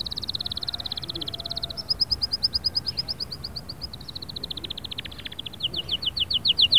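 Domestic canary singing: a string of rolled trills, each a fast run of high repeated notes. About two seconds in it shifts to slower notes that slide downward, then back to a very fast trill, and near the end to louder downward-sliding notes.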